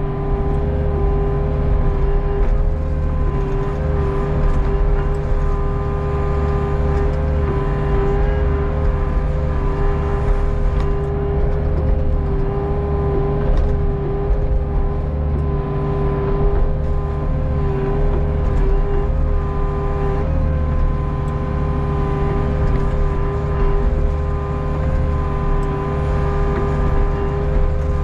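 Hitachi ZX48U mini excavator's diesel engine running steadily under load as the arm and bucket dig, a steady hum with a constant whine on top.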